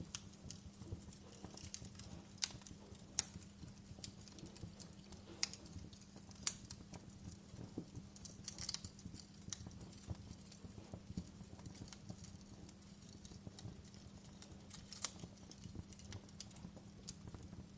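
Wood fire burning in a fireplace, crackling with irregular sharp pops: many small ticks and a few louder snaps, over a low steady hum.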